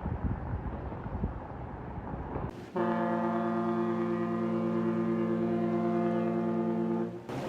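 A steady rushing noise, then about three seconds in a ship's horn sounds one long, steady, multi-tone blast lasting about four and a half seconds before cutting off.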